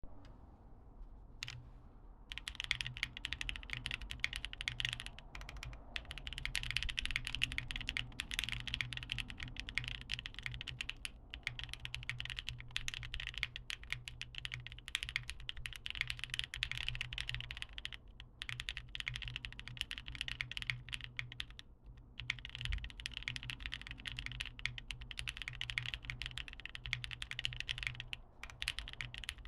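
Mechanical keyboard with TKC Kiwi tactile switches, a polycarbonate plate, GMK Modo2 keycaps and no case foam, typed on at a steady fast pace through a phone microphone. The typing starts about two and a half seconds in and pauses briefly a few times.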